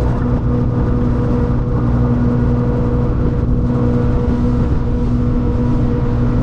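Bayliner motor yacht's inboard engines running steadily underway, a constant low drone with water rushing past the hull.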